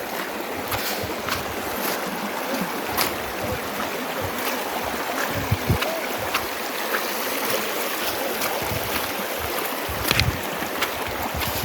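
Steady rush of stream water flowing over rocks, with a few sharp clicks on top.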